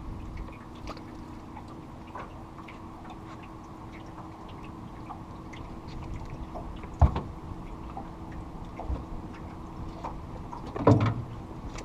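Boat motor running steadily at low speed, with scattered light ticks and two sharp knocks, about seven and eleven seconds in.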